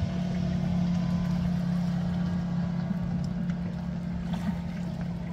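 A steady low engine drone with a constant hum, unchanging throughout.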